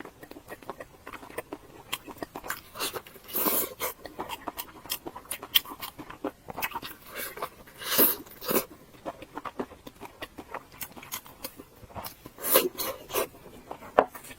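Close-miked eating: steady chewing with many quick wet mouth clicks, and louder bites or crunches about every four to five seconds.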